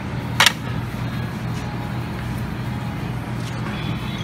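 One sharp clack of serving tongs against a buffet tray about half a second in, over a steady low hum of restaurant background noise.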